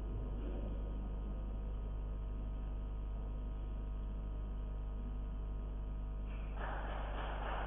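Steady electrical mains hum with a buzz of overtones. About six and a half seconds in, a steady hiss joins it.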